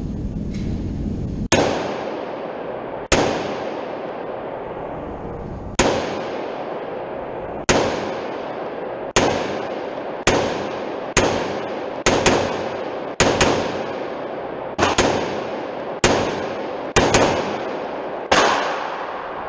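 AR-15 rifle firing about fifteen single shots at an uneven pace, some in quick pairs, each shot followed by a long echoing tail.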